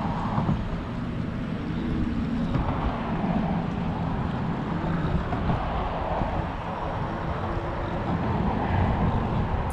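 Wind buffeting the microphone over a steady low motor hum.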